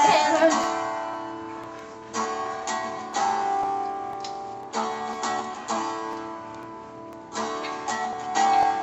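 Instrumental passage of a recorded song: a guitar strums a chord about every two and a half seconds and lets it ring out, with a few lighter strokes in between.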